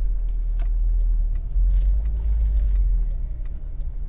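Honda Civic Type R (FD2) on the move, heard from inside the cabin: a steady low rumble of its K20A four-cylinder engine and tyre road noise.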